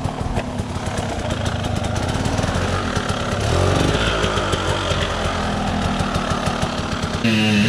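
Enduro dirt bike engine running under riding, revs rising and falling. Near the end the sound switches abruptly to an engine with a wavering pitch.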